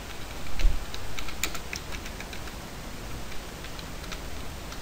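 Computer keyboard being typed on: a run of quick, irregular key clicks as a word is typed out, with one heavier low thump about half a second in.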